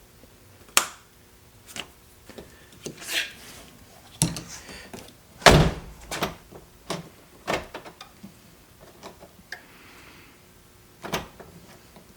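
Clicks and knocks from a 2011 Ford Fiesta's driver's door and its key lock being worked, the loudest a heavy thunk about five and a half seconds in.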